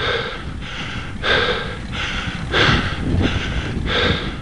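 A cyclist breathing hard from the effort of climbing a 12% gradient. It is rhythmic panting, with a breath in or out about every two-thirds of a second and every other breath stronger.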